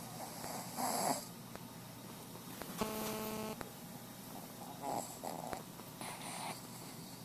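A Shih Tzu snoring in her sleep. There are rasping snores about a second in and twice near the end, and one longer, pitched, buzzing snore in the middle.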